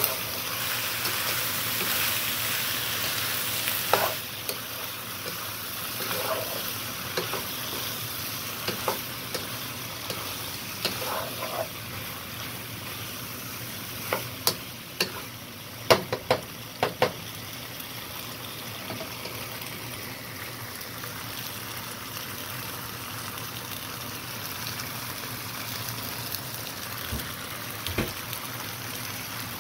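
Creamy pasta sauce with shredded chicken sizzling in a frying pan as it is stirred with a spoon, sizzling louder in the first few seconds. The spoon knocks sharply on the pan about four seconds in, several times about halfway through, and once more near the end.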